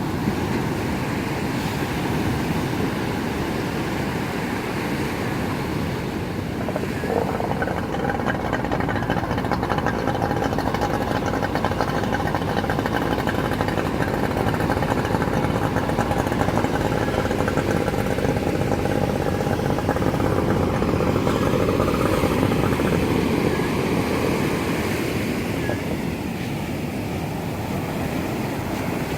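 Surf and wind noise with a motor engine running over it: a steady engine tone comes in about seven seconds in, swells, and fades away again about two thirds of the way through.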